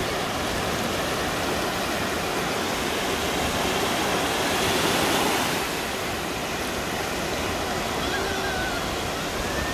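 Ocean surf breaking and washing up on a sandy beach: a steady rush of waves that swells a little around the middle and eases off about six seconds in.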